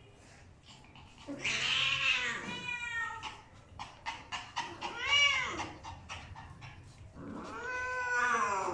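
A cat yowling in distress as a small dog mounts and holds it down. There are three drawn-out cries, each rising and falling in pitch: a long one about a second in, a shorter one midway, and another starting near the end.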